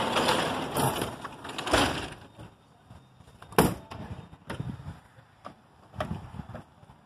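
A metal louvered gate being handled, with rustling and clatter, then scattered knocks and clanks. The sharpest knock comes about three and a half seconds in.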